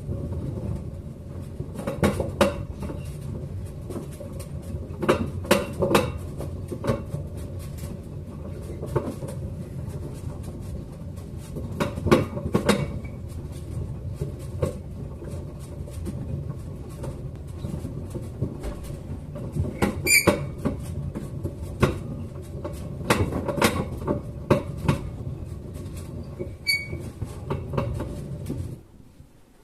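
LG washing machine running a wash with a steady rumble, broken every second or two by irregular sharp knocks and clatters: the unexplained noise that appeared during washing. It cuts off abruptly shortly before the end.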